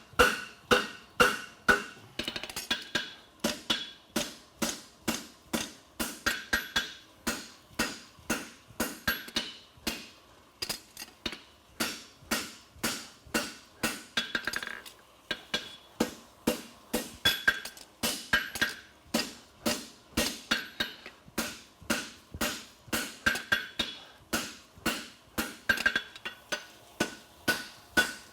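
Hand hammer striking a hot steel horseshoe on an anvil, about two to three ringing blows a second in a steady rhythm, as the farrier forges up a heel calk on a thick double-calked hind shoe.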